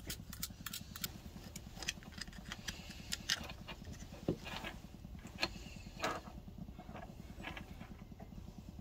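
Small metal clicks and taps of stainless bolts and nuts being handled and fitted to a steel controller bracket, irregular, a few a second, over a steady low hum.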